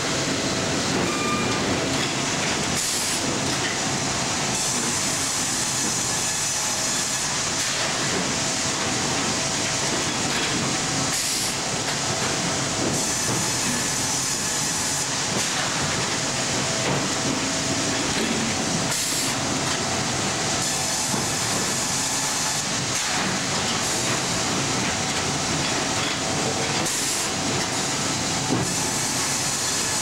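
Sawmill log-processing machinery running: a steady, loud mechanical din with a hissing top end as logs feed along roller conveyors into the machines.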